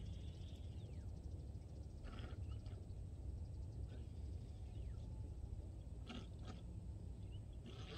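Birds calling in short bursts several times, with a few faint falling whistles, over a steady low rumble.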